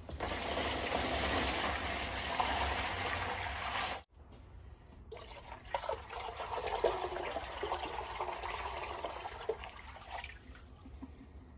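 Water poured from a plastic bucket into a plastic tub, splashing as the tub fills. The pour breaks off suddenly about four seconds in. A second, more splashy pour follows and tails off near the end.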